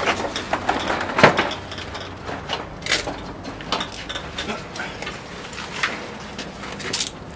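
Irregular knocks and clanks, with rustling, of people clambering on a metal security grate and handing a bag up over it; the sharpest knock comes about a second in.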